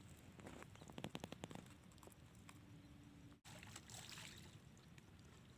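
Near silence: faint outdoor background, with a brief quick run of faint clicks about a second in.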